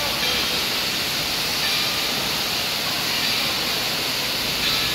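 Steady rushing and splashing of water running from the sprayers and spouts of a waterpark play tower, an even hiss with no surge.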